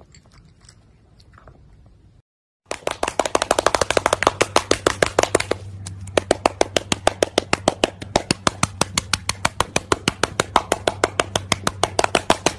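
Faint crunching of dry kibble at first, then after a brief cut a loud, fast, very even run of sharp clicks or slaps, about six a second, over a steady low hum.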